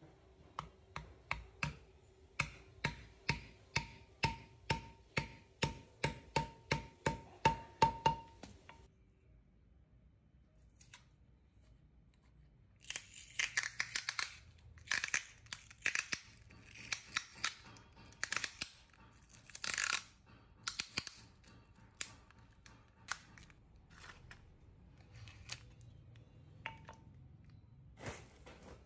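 Hammer striking metal in a steady run of blows, about two to three a second, each with a short metallic ring, stopping after about eight seconds. After a pause come irregular scraping strokes and scattered light knocks.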